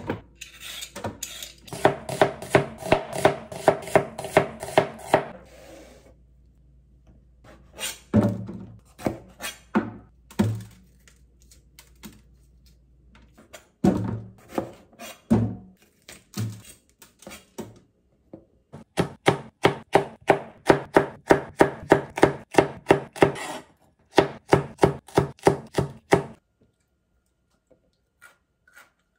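Kitchen knife slicing bell peppers into strips on a plastic cutting board: runs of quick, even cuts, about four a second, with quiet pauses between them.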